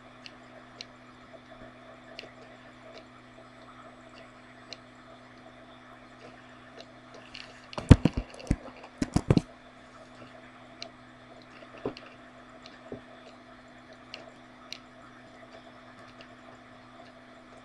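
Low steady hum with faint scattered ticks, and a quick burst of several sharp clicks about eight to nine and a half seconds in.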